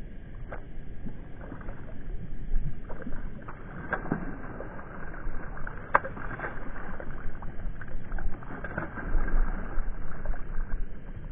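Water lapping and sloshing against the hull of a small boat, with a scattering of short knocks and splashes, the sharpest about four and six seconds in.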